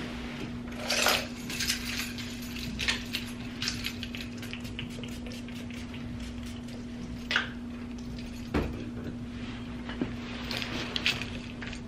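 Bottles, cans and tools knocking and clinking in a loaded makeup-kit bag as it is lifted and shouldered, in short scattered clatters, with a jingle of keys near the end. A steady low hum runs underneath.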